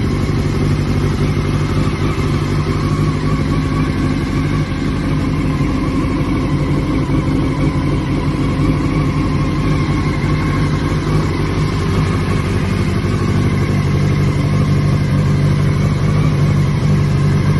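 2005 Yamaha YZF-R6's inline-four engine idling steadily through a LeoVince carbon slip-on exhaust, warming up after a cold start.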